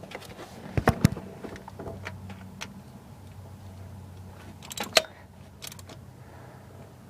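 Hand tools clicking and knocking on metal as a starter mounting bolt is tightened, with two louder knocks about a second in and another cluster of clicks near five seconds.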